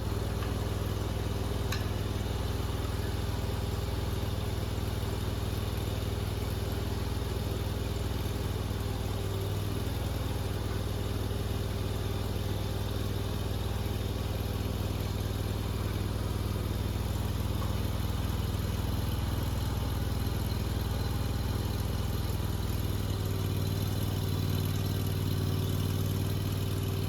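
Engine of a Nuoman mini skid steer running steadily at an even speed, with a steady low hum and little change throughout.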